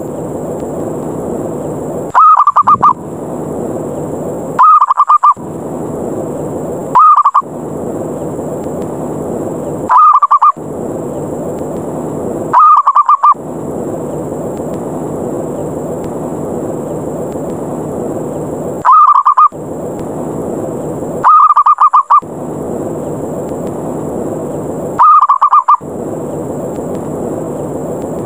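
Zebra dove (perkutut) calling in short trilled cooing phrases, eight in all, each a few seconds apart with a longer pause midway. This is the aggressive 'ngerot' challenge call, played as a trapping lure to bring other perkutut down. A steady hiss fills the gaps between calls.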